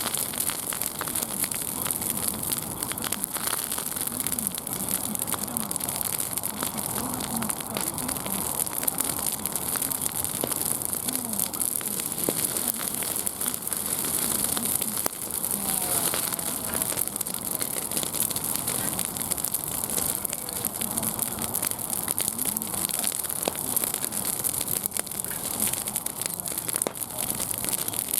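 Wood fire crackling and hissing steadily with dense small pops, with a faint murmur of voices underneath.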